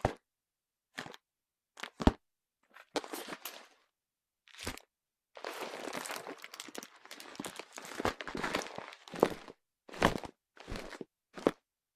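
A pleather handbag with a metal chain strap being handled, flipped and slid on a hardwood surface: a series of separate rustles and knocks, with a sharp thud about two seconds in and a longer stretch of sliding and rustling from about five to nine and a half seconds.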